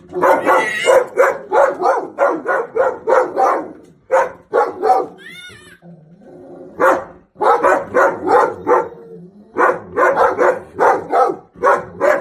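Dog barking repeatedly in quick runs, about three barks a second, with short pauses between the runs.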